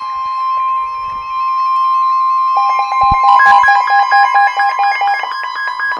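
Weather radio sounding the steady 1050 Hz warning alarm tone that announces a severe thunderstorm warning. About two and a half seconds in, a second weather radio joins with a fast beeping alert of about four beeps a second, alternating between two pitches. There are a couple of soft knocks around three seconds in.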